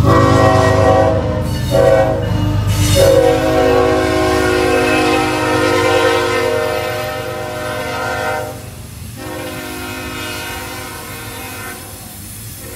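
Horn of a CSX GE ES44AH diesel locomotive blowing as it passes, over the deep rumble of its engine. A couple of short blasts give way to a long one that drops slightly in pitch as the locomotive goes by, and it fades sharply after about eight seconds while the cars roll past with a steady clatter.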